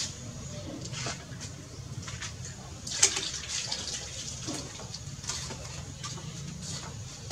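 A single sharp crack about three seconds in, from PCP air-rifle shooting at steel knockdown targets, with a few fainter clicks over a low steady hum.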